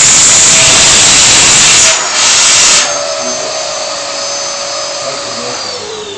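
Vacuum cleaner running at full suction with a loud rushing noise, dropping out briefly about two seconds in, then cutting off just before three seconds; the motor's whine then winds down, falling in pitch near the end.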